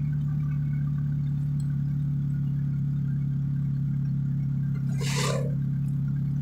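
Steady engine hum heard from inside a moving vehicle's cabin. About five seconds in there is a brief rushing whoosh as an oncoming van passes.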